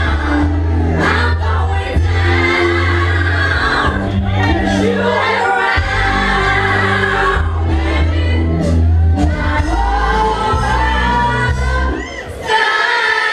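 A woman singing into a microphone over loud amplified soul music with a heavy bass line. The bass drops out briefly near the end.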